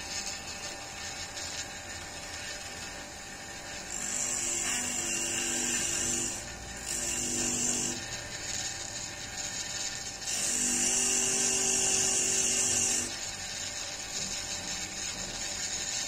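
Electric motor spinning a sanding drum, running steadily with a hum of many steady tones. Three times it swells into a louder, higher hiss lasting a few seconds each.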